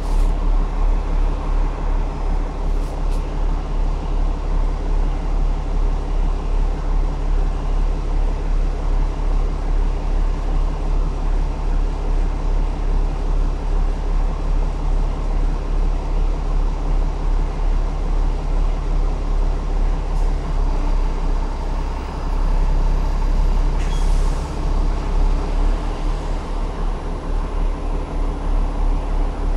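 Cummins ISLe 8.9 six-cylinder diesel and ZF 6HP604C automatic gearbox of a double-decker bus under way, heard from the upper deck: a steady, pulsing drone with several held tones over it. The note shifts about two-thirds of the way in, and a brief hiss comes near the end.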